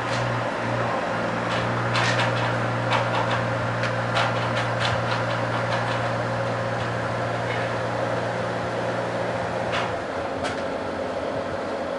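A motor running with a steady low hum that cuts out about ten seconds in, while scattered sharp knocks and clanks of work go on around it.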